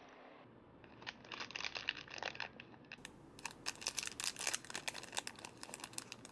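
A squishy toy's packaging being handled and crinkled, a dense run of quick crackles and rustles starting about a second in.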